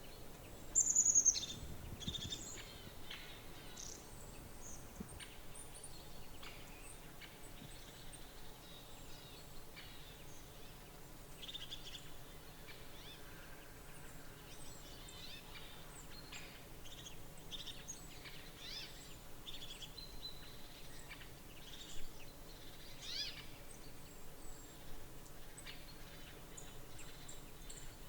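Small birds calling in short, high, scattered chirps over a steady outdoor background, with one louder call falling in pitch about a second in.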